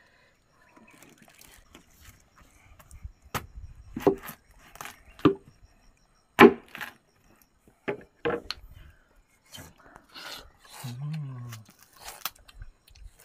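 Watermelon being bitten into and chewed close to the microphone: a series of irregular bites and chews, the loudest about six and a half seconds in, with a brief hum of a voice near the end.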